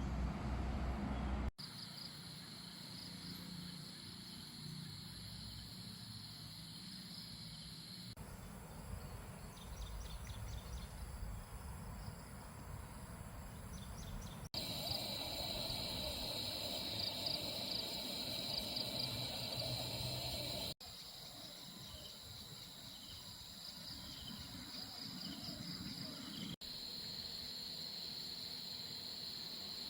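Insects trilling steadily in the woods, a high continuous buzz with fast pulsing in it. The ambience jumps abruptly every few seconds as one recording gives way to the next, and a tail of music ends about a second and a half in.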